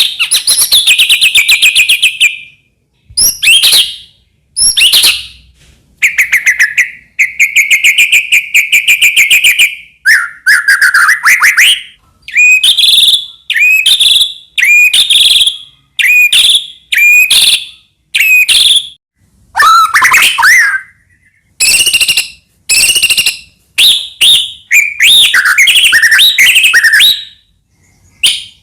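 White-rumped shama (murai batu) singing vigorously: a loud run of varied phrases of clear whistles and fast trills, each lasting about half a second to two seconds, with brief pauses between them.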